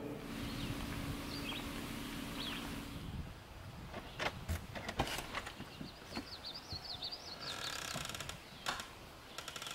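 A low steady hum inside a moving van for about three seconds, then quiet outdoor background with a few sharp clicks and knocks as a cabin door is handled, and a songbird chirping in a quick run of high notes about two-thirds of the way through.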